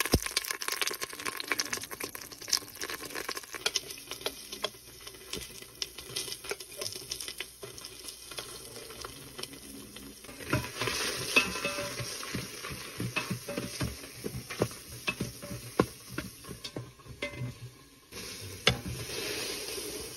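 Whole spices and curry leaves sizzling in hot oil in a stainless steel pressure-cooker pot, with many sharp pops and crackles from mustard seeds. Past the middle, sliced red onion goes in and is stirred, the spoon clattering and scraping against the pot over the frying.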